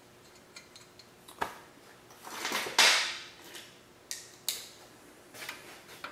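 Small steel nuts and cone washers clinking as they are handled and threaded onto the wheel hub studs by hand: a few sharp clinks, with a longer, louder metallic rattle near the middle.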